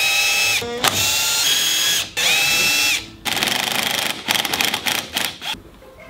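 Cordless impact driver turning the bolts on a winch's gearbox housing, run in four short bursts. Each burst spins up with a rising whine and then holds, and the last one breaks into a rapid rattle as the driver starts hammering.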